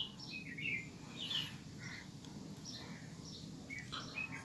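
Small birds chirping in quick, short notes, again and again, over a faint low background hum.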